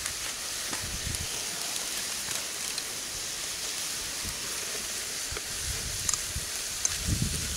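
Ground pork frying in a pan over a wood fire, a steady sizzle as it is stirred, with a few low thumps near the end.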